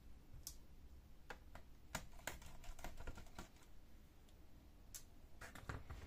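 Scattered, irregular light clicks and taps from a screwdriver working the screws of a laptop's plastic bottom panel and from hands handling the case.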